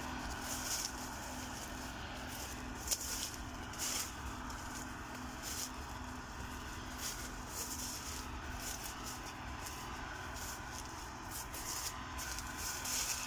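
A farm machine's engine runs at a steady drone during the corn harvest, with a faint constant hum. Frequent short crackling and rustling sounds, like dry corn stalks and leaves brushing, come and go over it.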